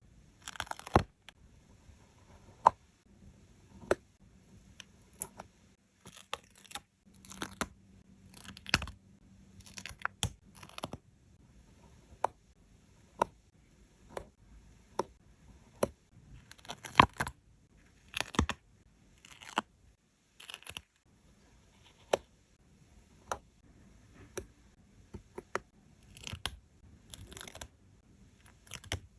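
Stickers peeled off their backing sheet and pressed into place, heard as an irregular run of short peeling rips and paper crinkles, with sharp taps and clicks between them.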